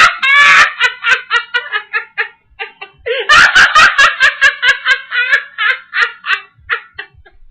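High-pitched laughter played as a sound effect: quick rhythmic ha-ha bursts, about five a second. It breaks off about two seconds in, comes back louder about three seconds in, and tails off near the end.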